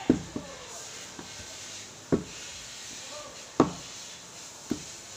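Wooden rolling pin rolling dough out on a round wooden board, with a sharp wooden knock every second or so as the pin and board bump at the strokes; a few knocks are louder than the rest.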